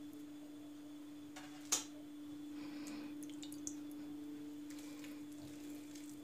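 Wet hands squeezing and pressing fatty minced meat for Adana kebab, with faint squelching, over a steady low hum. A sharp click comes just under two seconds in, and a smaller one later.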